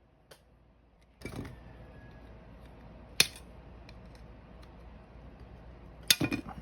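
Small clicks and taps of plastic RC kit parts being handled on a workbench: a faint click early, one sharp click about three seconds in, and a quick cluster of clicks near the end, over a faint steady hum.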